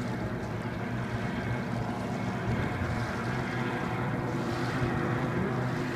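Racing hydroplane boat's engine running with a steady drone that grows gradually louder.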